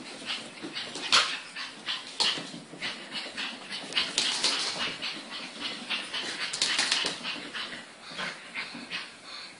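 A dog making quick, irregular breathy noises and whimpers.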